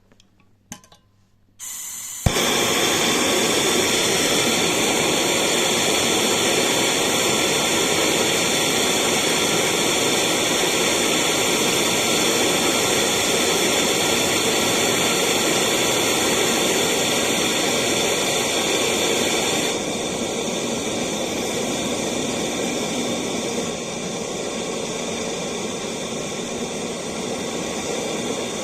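BernzOmatic TS8000 torch burning MAP gas for brazing a refrigerator compressor's discharge line: the gas hisses on, lights with a sharp click about two seconds in, then the flame burns with a loud steady rush, dropping a little in level twice near the end.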